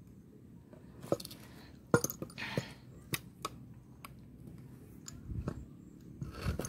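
Light metal clicks and taps from a new piston and its wrist pin being handled and fitted onto the connecting rod of a Shingu chainsaw's two-stroke engine, about six sharp clicks in the first half, then a few soft low bumps as the piston is set down over the crankcase near the end.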